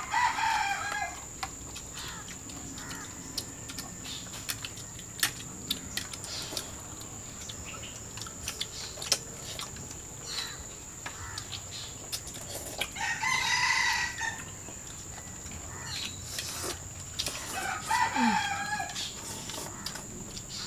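A rooster crowing three times, each crow about a second long: right at the start, about 13 seconds in and about 18 seconds in. Scattered light clicks and a steady high-pitched tone run underneath.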